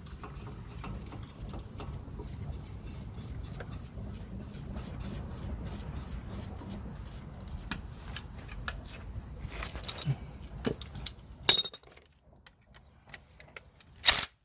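Light metallic clinks and clicks of hand tools and brake parts being handled, over a steady low hum that cuts off about twelve seconds in. A single sharp metallic clack near the end.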